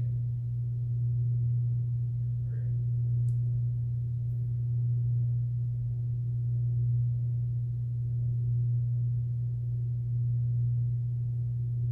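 A steady low-pitched hum, loud and unchanging, with nothing else standing out over it.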